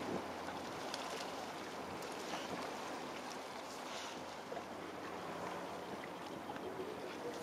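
Steady open-water ambience of wind and water noise, with a faint low hum running under it.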